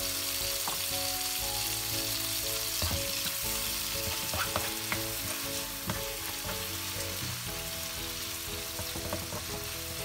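Chopped tomatoes sizzling in hot oil in a nonstick frying pan over high heat, stir-fried until they soften, with short scrapes and taps of a spatula against the pan as they are stirred.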